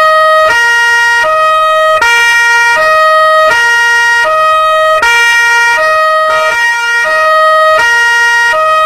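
Two-tone police siren alternating between a high and a low note, switching about every three-quarters of a second, loud and steady.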